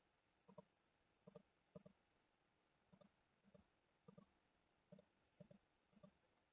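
Faint computer mouse clicks, mostly in quick pairs, about ten of them at uneven intervals of half a second to a second, as mesh vertices are selected one after another.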